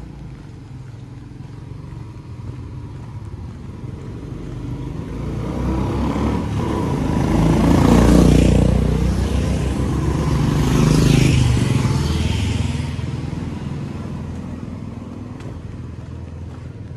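Motor vehicles passing close by on a street, one after another. The sound swells to a peak about eight seconds in, peaks again about three seconds later, then fades away.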